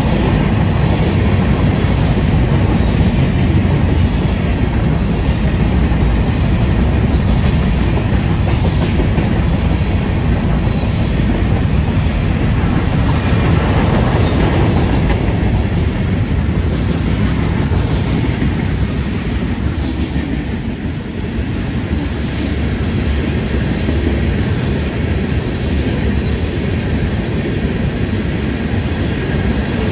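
A Florida East Coast Railway freight train's mixed freight cars (tank cars and hoppers) rolling past close by: a steady, loud rumble of steel wheels on the rails with clattering over the track.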